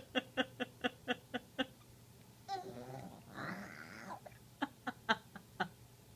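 Baby making a silly repeated vocal noise: a run of short pitched grunts at about four a second, a breathy voiced stretch midway, then three more grunts.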